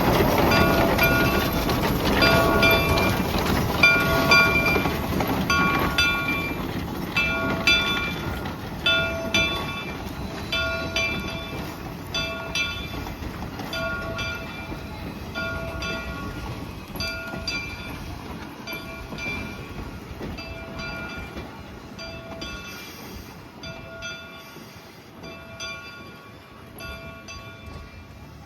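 A train's rumble with a locomotive bell ringing about once a second, both fading steadily as the train moves away.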